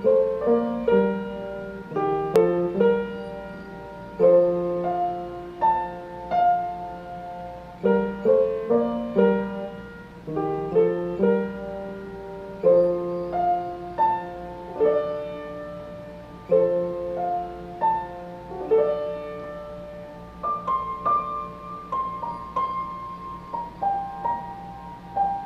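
Keyboard in a piano voice playing a slow chord progression: each chord is struck over a bass note and left to ring, with a melody on top, and the phrase comes round again every few seconds. Near the end the playing moves higher and softer.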